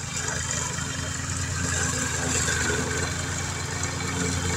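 Walk-behind lawn mower running steadily as it cuts through tall, thick grass, getting a little louder in the first second.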